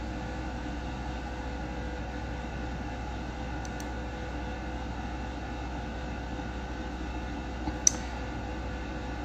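Steady room noise: an even hiss over a low hum, with one short sharp click about eight seconds in.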